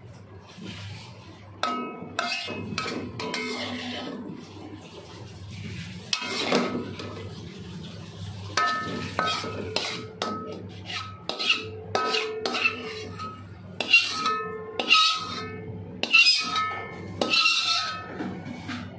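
A metal spatula scraping and knocking against a thin aluminium wok as the cooked food is scooped out. Many irregular strikes leave the wok ringing briefly, and they grow louder and more frequent in the second half. A steady low hum runs underneath.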